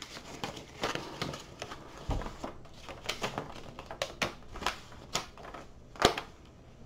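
Sheets of printed paper rustling and crackling as they are unfolded and handled: a run of short, irregular crisp crackles, the sharpest about six seconds in.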